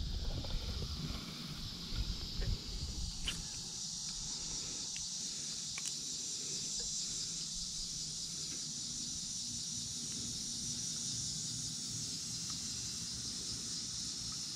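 Steady high-pitched buzz of an insect chorus. In the first three seconds there are low rustling sounds and a few light clicks.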